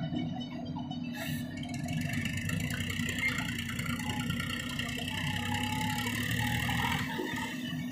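Diesel engine of a JCB backhoe loader running steadily while the backhoe digs and lifts a bucket of soil.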